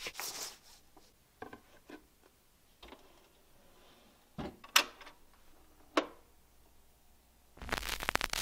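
A vinyl record being handled and put on to play: a short paper rustle as it slides from its sleeve, then a few light clicks and taps as it is set on the turntable and the tonearm is moved. Near the end the stylus meets the record and a crackling surface noise begins.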